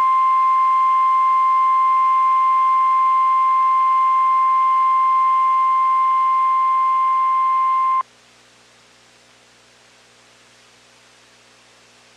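NOAA Weather Radio warning alarm tone, a single steady pure tone near 1050 Hz that marks an incoming alert. It holds for about eight seconds, cuts off suddenly, and is followed by a few seconds of faint dead-air hiss.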